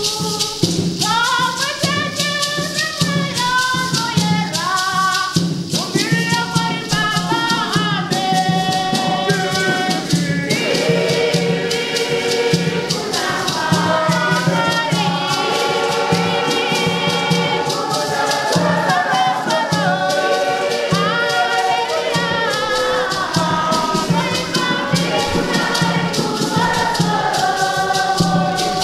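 Church choir singing in several voices, with shaker rattles keeping a steady, continuous beat.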